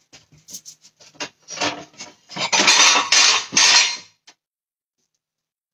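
Plates and dishes clattering and clinking as they are handled on a kitchen counter: scattered knocks at first, then a busier run of clatter that stops after about four seconds.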